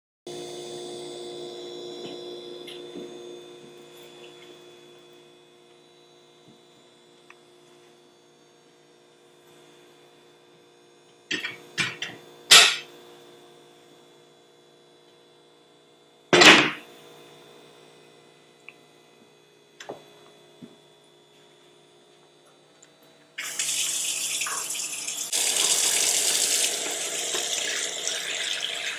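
Metal pans knocking and clanking, a few sharp strikes and one loud one, as a saucepan is taken out. About 23 seconds in, a kitchen faucet is turned on and runs steadily into the saucepan, filling it with water.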